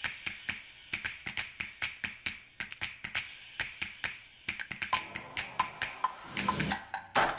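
A recorded percussion track played back over loudspeakers: a quick run of sharp tapping and clicking hits, several a second. About five to six seconds in come a few short ringing, pitched hits, and near the end there are heavier hits.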